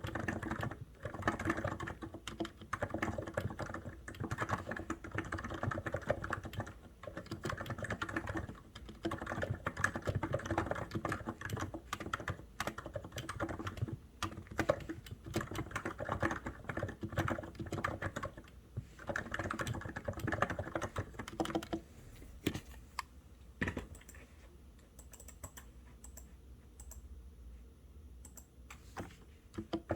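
COX Endeavour electro-capacitive keyboard being typed on: a steady, fast run of key presses that thins to only occasional, quieter keystrokes about 22 seconds in, with fuller typing again at the very end.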